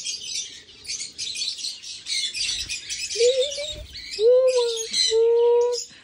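Dense, continuous chirping chatter of aviary birds, with three longer, lower held calls in the second half that rise into a steady pitch and are the loudest sounds.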